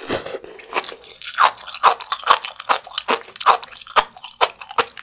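Close-miked chewing of a mouthful of sea grapes, the green caviar seaweed: a steady run of wet pops and squishes, two or three a second, as the little beads burst between the teeth.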